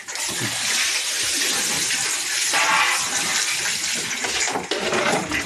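Water running and splashing steadily as it is poured out for pigs to drink, a little fuller for a moment about halfway through.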